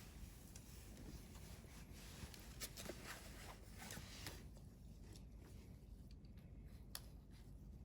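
Wood campfire crackling faintly, with scattered sharp pops, the loudest about seven seconds in.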